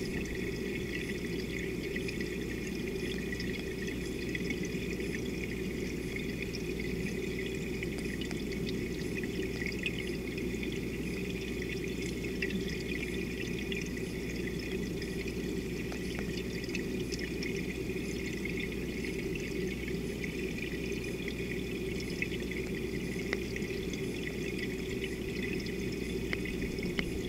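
Underwater ambient noise recorded by a submerged camera: a steady, muffled rush with faint scattered clicks.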